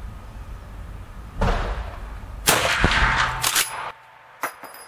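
Pedersoli 1886 Boarbuster Mark II lever-action rifle in .444 Marlin firing in an indoor range: a loud report about a second and a half in and a louder one about a second later, each ringing in the room. Near the end come sharp metallic clicks with a light ring as the lever is worked.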